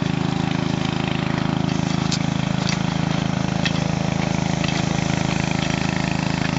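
A small engine running steadily at one constant speed, with a few sharp crackles from a wood campfire.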